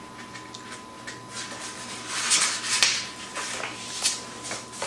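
Paper rustling as a paperback book is handled and its pages turned, with a couple of light knocks near the end.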